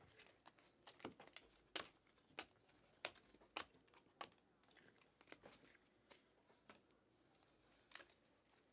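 Faint, crisp snaps of glossy trading cards being slid off the top of a stack one by one in the hand, roughly one to two a second.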